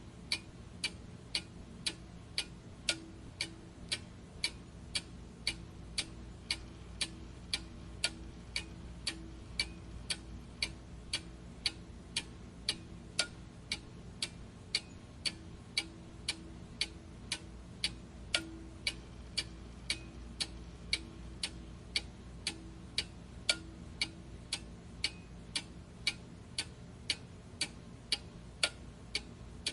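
Steady, evenly spaced ticking, about one and a half ticks a second, over a faint low hum.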